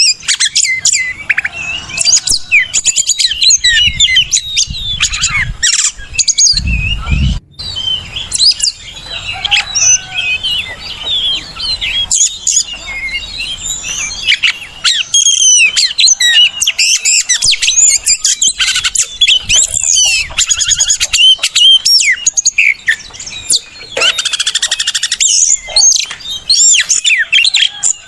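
Oriental magpie-robin song, loud and unbroken: a rapid, varied run of whistles, chirps and trills. There is a brief low rumble about seven seconds in.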